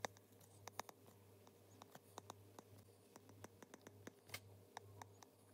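Near silence with faint, irregular light clicks and taps of a stylus on a pen tablet while handwriting is written, over a faint low hum.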